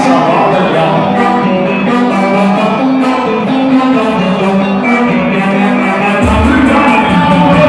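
Live band music with layered melodic instrument lines; a heavy bass comes in about six seconds in.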